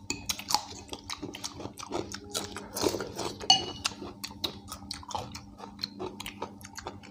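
Spoons clinking and scraping against ceramic bowls of haleem, with the chewing and mouth sounds of two people eating; many short, irregular clicks.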